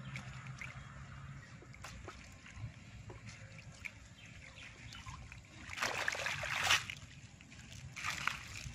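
Wet fishing net being hauled out of the water, with trickling and dripping water and small ticks. About six seconds in there is a louder splashing rush lasting about a second, and a shorter one near the end.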